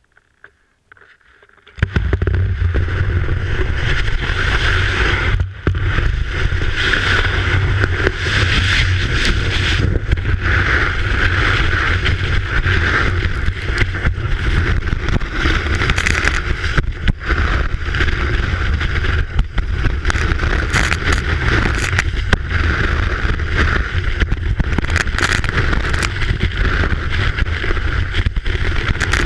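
A ski running over snow, heard through a camera mounted on the ski itself: a steady, loud rumble and hiss of the ski base and edges on the snow, full of small irregular crackles. It starts about two seconds in, when the ski begins to glide, and keeps going.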